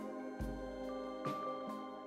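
Soft background music: sustained instrumental notes over a low bass, with new notes coming in about every half second.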